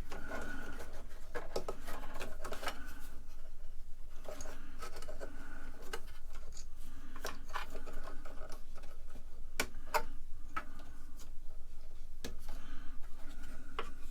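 Cables and plastic connectors being handled inside the Tandy Model 4P's case as the power connector is fitted to the floppy drives: irregular rubbing with scattered sharp clicks, the sharpest a few near the middle and end.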